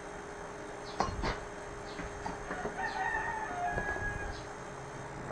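A rooster crowing once, a long call starting about two and a half seconds in, with two sharp clicks about a second in and faint high chirps.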